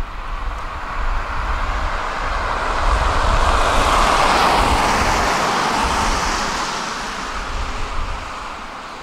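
A vehicle passing by, its noise building to a peak about four seconds in and then fading away.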